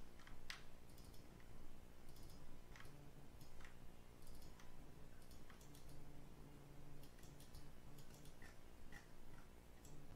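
Faint, scattered clicks of a computer mouse and keyboard, a few every second or so, over a low steady hum.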